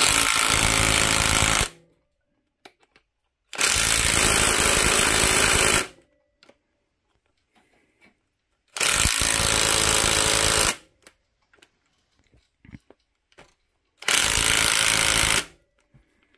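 Cordless impact driver hammering cylinder head bolts down, in four bursts of about two seconds each with short pauses between.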